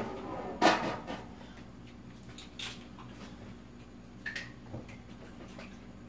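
A sharp knock a little after the start, then a few faint clicks and taps, over a low steady hum.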